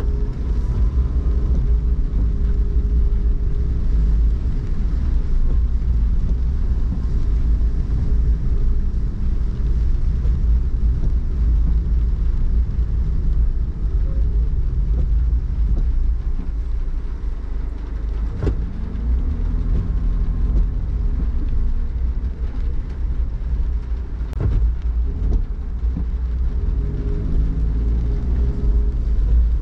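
A car driving, heard from inside the cabin: a steady low rumble of engine and road noise. Two brief knocks come in the latter half.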